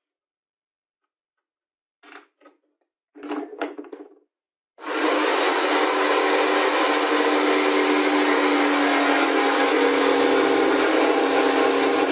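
A few short handling knocks and scrapes, then from about five seconds in a table-mounted jigsaw runs steadily, its blade cutting a slit into an MDF disc.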